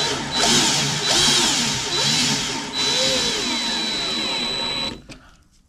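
A cordless drill forces a screw into a hole in the battery box's metal top rail that does not line up. The motor whines and its pitch dips and rises as it labours under load, then it stops about five seconds in.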